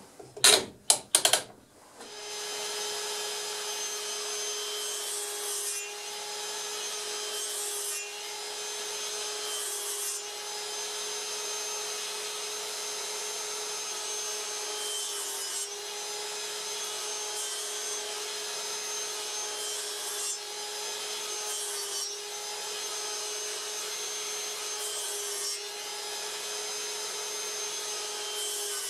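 A few sharp knocks, then a Metabo sliding miter saw's motor starts about two seconds in and runs steadily with a constant whine. Brief scraping bursts recur every couple of seconds as the spinning blade rubs and trims the wooden workpiece.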